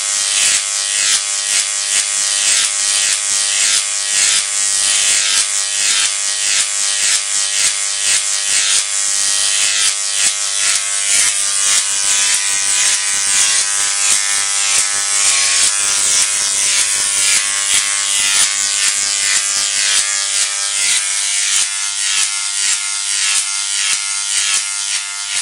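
A 30,000-volt electric arc crackling and buzzing steadily between the two upright wires of a Jacob's ladder, with a steady whine underneath.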